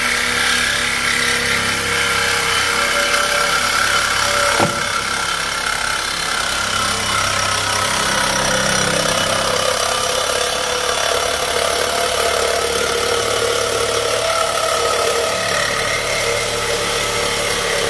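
Cordless reciprocating saw cutting through a rusted steel exhaust pipe, running steadily and loud, with one sharp click about four and a half seconds in.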